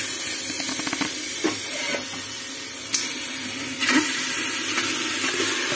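Raw mutton pieces sizzling as they are tipped into a hot aluminium pressure cooker on a gas flame: a steady hiss that starts the moment the first pieces land, with a few short knocks of meat dropping in.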